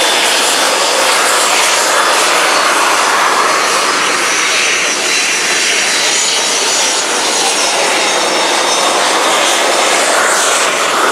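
PZL TS-11 Iskra jet trainer taxiing, its single turbojet engine running with a steady loud rush and a high whine.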